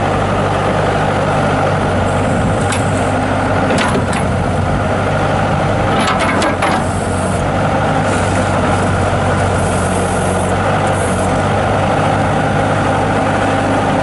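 Bobcat S185 skid steer's diesel engine running steadily while the Bobcat 607 backhoe attachment is worked through its hydraulic controls. A few sharp clicks come between about three and seven seconds in.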